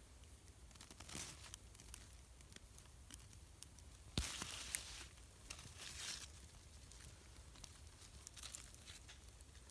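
Dry grass and twigs rustling and crumpling as they are handled, in several short bursts. The loudest starts sharply about four seconds in.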